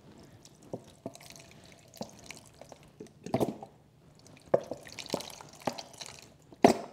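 Italian salad dressing pouring from an upside-down plastic bottle into a pot of spaghetti, coming out in irregular glugs and drips, a few louder than the rest.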